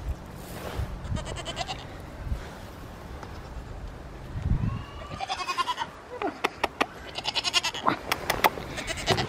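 Pygmy goat bleating three times, each bleat a quavering, wavering call. Between the last two bleats and after them come a few sharp clicks, which are the loudest sounds.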